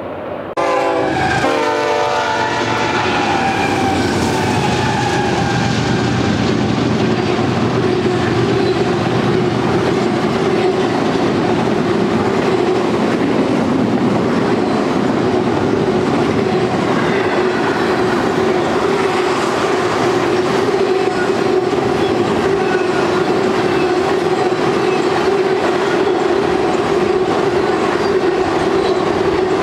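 A BNSF freight locomotive's horn sounds briefly near the start, its pitch falling, then a double-stack intermodal freight train's cars rumble and clatter steadily past, with a steady drone.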